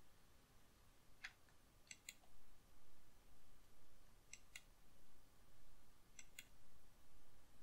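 Faint computer mouse clicks: one click about a second in, then three quick pairs of clicks spaced about two seconds apart.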